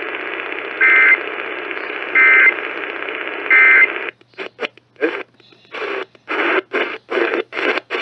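AM radio static from a Kaito Voyager Pro receiver carrying three short warbling digital data bursts about a second and a half apart: the Emergency Alert System end-of-message code that closes a monthly test. About halfway through, the audio starts cutting in and out in short choppy pieces as the radio is retuned to another frequency.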